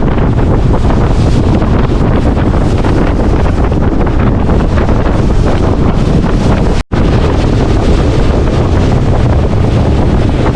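Wind buffeting the microphone on a boat at sea: a loud, steady rush strongest in the low end, with a split-second drop-out about seven seconds in.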